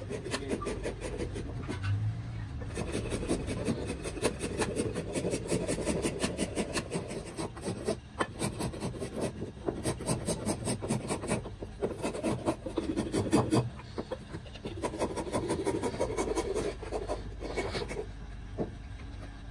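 Steel hand file rasping over a small carved wooden figure in quick back-and-forth strokes. The strokes come in runs broken by short pauses.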